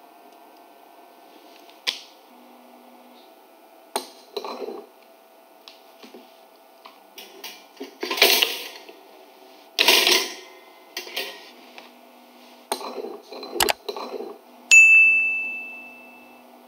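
Kitchen handling sounds: scattered taps and clicks and two short rustling scrapes as a filled tortilla wrap goes into a toaster. Near the end comes a single bright metallic ding, the toaster's bell, which rings out for about two seconds.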